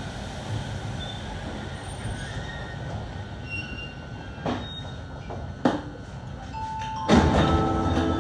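Rubber-tyred MP05 metro train slowing to a stop at the platform: a steady rumble with two short knocks, then a louder burst of noise with a few held tones about seven seconds in.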